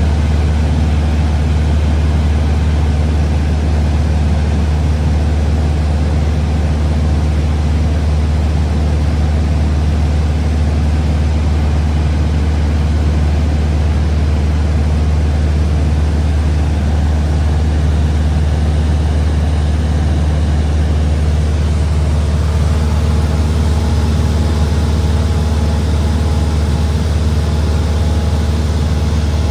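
Cessna 172's piston engine and propeller droning steadily in flight, heard inside the cabin as a loud, even low hum with rushing air noise over it.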